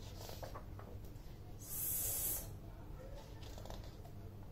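A woman's voice giving the phonics sound for the letter s: one drawn-out hissing 'sss' lasting under a second, about two seconds in.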